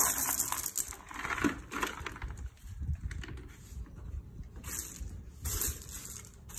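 Push broom sweeping loose white pebbles across pavers: a few scraping, gritty strokes, with a quieter pause in the middle.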